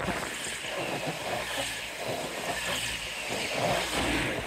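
A train passing: a rushing, rumbling noise that builds to its loudest near the end.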